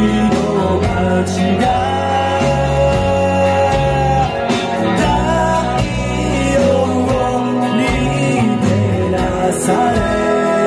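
Live rock band playing: a male vocalist singing over electric guitar and drums.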